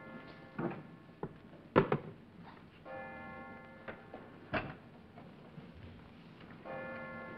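Knocks and a clatter, the loudest about two seconds in, as a desk telephone handset is put back down. A bell-like tone of about a second sounds twice, roughly four seconds apart.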